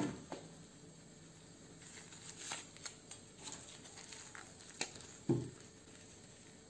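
Faint handling noises of gloved hands on small steel pieces: scattered rustling and light scraping, a sharp click a little before five seconds in and a soft knock just after.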